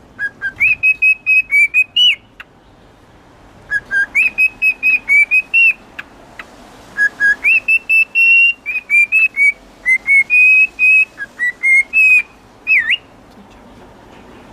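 Cockatiel whistling a learned tune: a phrase of short, clear whistled notes, sung three times with short pauses between, the last phrase longer than the others.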